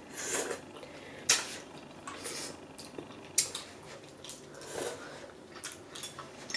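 Noodles slurped from bowls in several short bursts, with a few sharp clicks of chopsticks against the bowls; two of the clicks are the loudest sounds.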